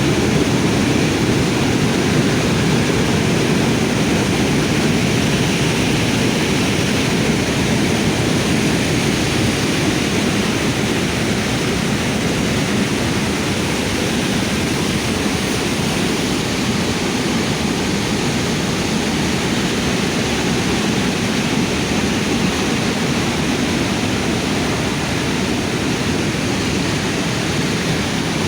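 Floodwater rushing steadily: a loud, even noise with no breaks.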